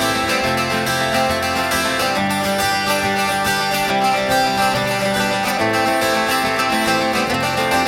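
Background music led by a strummed acoustic guitar, in a country or bluegrass style.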